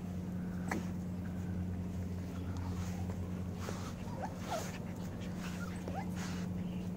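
Puppies play-fighting, letting out several short high squeaks and yelps amid rustling, over a steady low hum.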